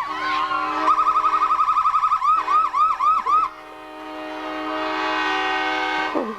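Electronic siren yelping fast, then a few slower wails, and stopping about three and a half seconds in. Under it, a steady multi-note chord is held throughout, from the Nathan Airchime K5LA five-chime locomotive horn, which swells louder near the end.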